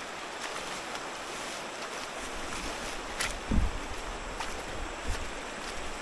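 River water rushing and splashing steadily, with a few sharp clicks and a low thump about halfway through.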